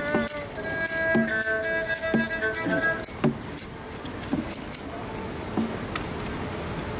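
Live music: a melody of held notes that ends about three seconds in, over a jingling rattle that keeps shaking on after the melody stops.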